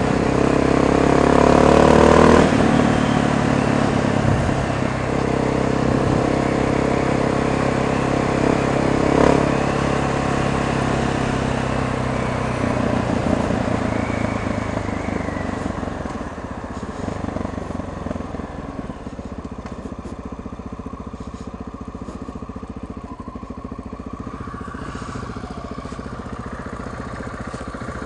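Honda XR650 single-cylinder four-stroke motorcycle engine under way, rising in pitch as it accelerates for about two seconds, then running steadily. After about twelve seconds it drops back and settles to a quieter idle as the bike slows to a stop.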